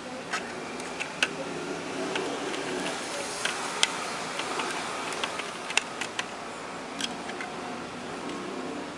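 Irregular small clicks and taps of a screwdriver working a screw on the plastic back panel of a wireless microphone receiver, over a low background murmur.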